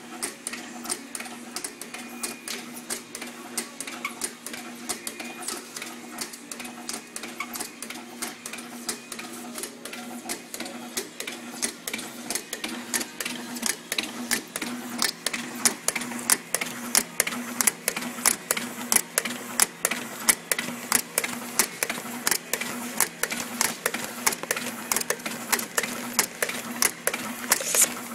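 Pot labeling line running: a steady machine hum under quick, regular clicking and clacking, a few clicks a second, which grows louder about halfway through.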